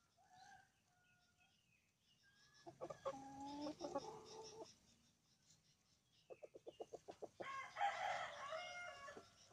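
Chickens calling: a rooster crows about three seconds in, a quick run of clucks follows near seven seconds, then a louder, higher crow about eight seconds in.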